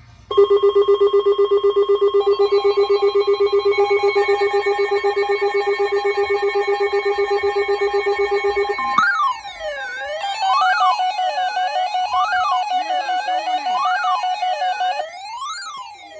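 Several weather alert radios sounding their alarms for a new warning. First a rapidly pulsing electronic beep made of several tones, for about nine seconds; then rising-and-falling siren-like sweeps about once a second, over a steady pulsing tone.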